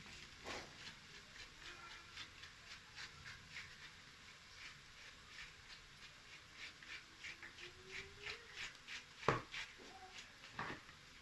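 Onions frying in oil in a pot, crackling with irregular small pops. There is a sharp knock about nine seconds in and a lighter one near the end.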